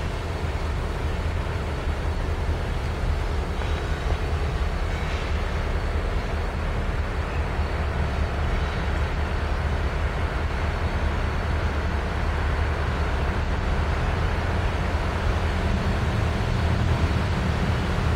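Diesel locomotive engines rumbling steadily, the rumble growing slightly louder toward the end as a locomotive approaches.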